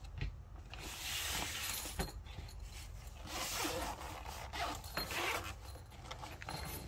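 Zipper on a soft nylon pistol case being pulled open in several hissing strokes, with handling rustle and a single sharp knock about two seconds in.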